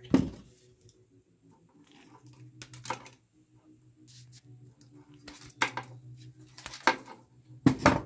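Wire cutters nipping and pulling the insulation off the ends of thin hook-up wire: five sharp clicks spread over several seconds, the first and last the loudest, over a faint steady hum.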